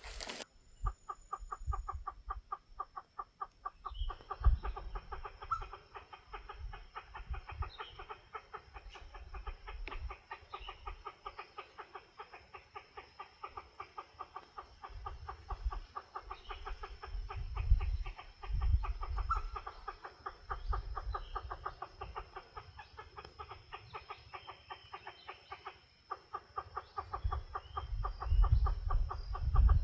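Recorded bird call played from a loudspeaker as a lure: a fast, even pulsed trill, about ten pulses a second, repeated in long runs. A steady high-pitched whine runs along above it, and dull low thumps come and go.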